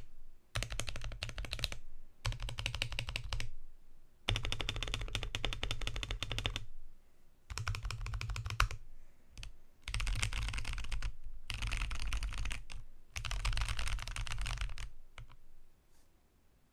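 Fast typing on a Womier K87 mechanical keyboard with Boba U4T tactile switches and POM jelly keycaps on a polycarbonate plate, a dense run of key clicks with a deep low thud under each. It comes in bursts of one to two and a half seconds with short pauses, stops about fifteen seconds in, and is followed by a few single keystrokes.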